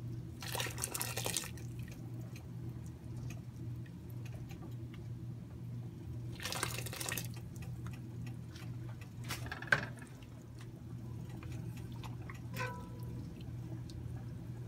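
A fine-mesh strainer skimming foam off pork stock in an enamelled cast-iron pot: two brief splashy swishes of liquid, about half a second in and again about six and a half seconds in, and a sharp clink about ten seconds in, over a steady low hum.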